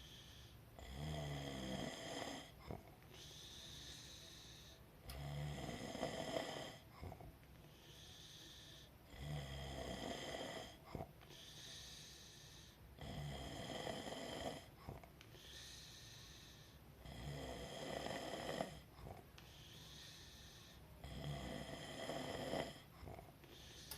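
A person snoring in a regular rhythm: about six snores, one roughly every four seconds, with quieter breathing between them.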